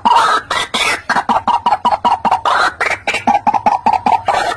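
White-breasted waterhen calling: a few longer, rasping calls, then a fast run of short, harsh repeated notes, about five a second.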